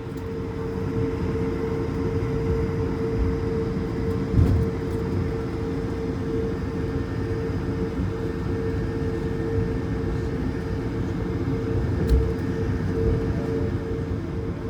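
Airbus A220-300 cabin over the wing: the Pratt & Whitney PW1500G geared turbofans running with a steady mid-pitched hum over a low rumble. The noise grows louder over the first couple of seconds, with a thump about four seconds in and another near the end.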